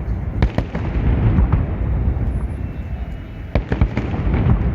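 Fireworks salute going off: a continuous deep rumble of distant shell bursts, with sharp cracks about half a second in and twice more near the end.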